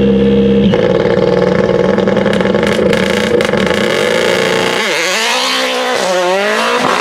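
Mini RRC rally car's turbocharged four-cylinder engine held at high, steady revs with a few sharp pops, then launching about five seconds in: the revs dip and climb, and climb again after the shift into second.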